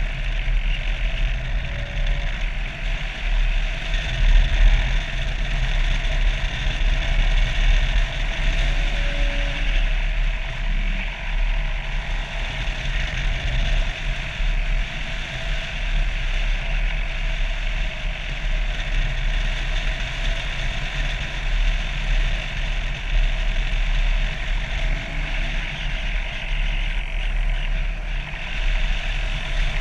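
Onboard sound of a radio-controlled model airplane in flight: its wing-mounted propeller and motor running steadily, with wind rumbling over the camera mounted on the plane.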